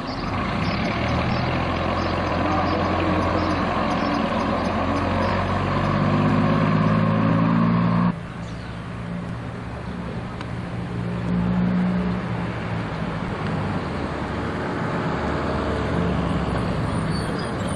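Double-decker bus diesel engines. For the first eight seconds one engine pulls away, its note climbing step by step as it accelerates. The sound then cuts abruptly to another bus engine running more steadily, with a brief rise in revs a few seconds later.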